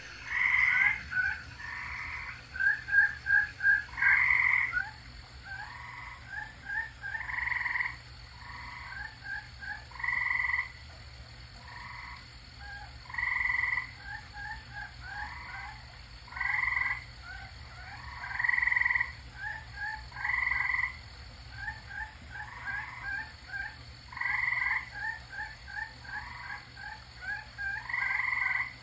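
A chorus of tree frogs calling, incredibly loud: calls about half a second long repeat every couple of seconds, overlapped by quicker runs of short chirping notes from other frogs.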